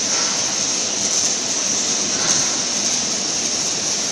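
Steady hiss from a CNC oxy-fuel and plasma gantry cutting machine while it runs.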